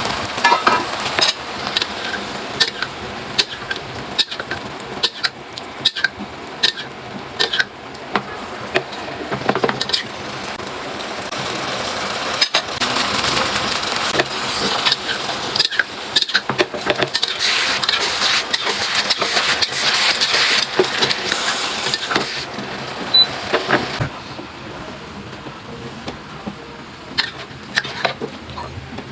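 Utensils repeatedly clinking and scraping against kitchenware, with a steady hiss that swells through the middle and cuts off sharply near the end.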